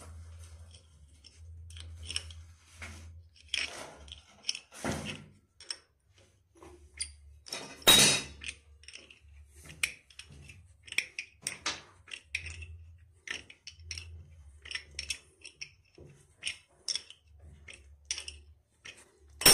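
Pliers clicking and scraping on a metal nut as it is turned on a toilet floor bolt: short, irregular metal clicks, with one louder knock about eight seconds in.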